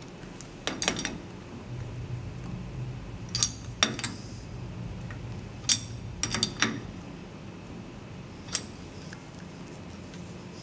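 Metal parts clinking and clanking, about eight short ringing knocks at irregular intervals over a faint steady low hum, as with metal workpieces or tooling being handled at a thread-cutting machine.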